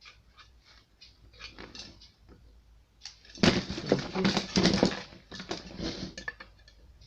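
Clicks, rustles and clatter of hands working the plastic fuel pump module and pushing its fuel line connectors on, faint at first and then louder and busier for a few seconds about midway.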